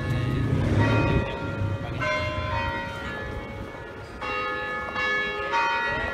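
Church bells ringing: fresh strokes about every one to two seconds, each left to ring on, with a low rumble under them in the first second.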